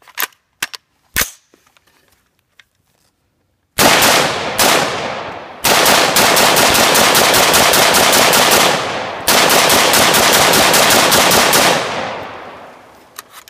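Diamondback AR-15 rifle fired rapidly in semi-auto: two single shots, then two long strings of evenly spaced shots, several a second, with a short break between, the echo dying away at the end. A few clicks come before the shooting. The rifle runs through the magazine without a failure.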